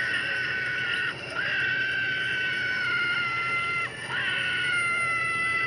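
A high-pitched voice screaming in long held cries, each sliding slowly down in pitch. There are two short breaks, about a second in and near four seconds in, and after each the next cry starts with a quick upward swoop.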